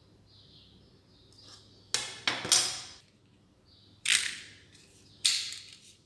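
Hand tools being handled on a wooden tabletop: a clear plastic ruler and a utility knife knocked and slid on the table, four sharp clacks each trailing off over about half a second, two close together about two seconds in and the others about four and five seconds in.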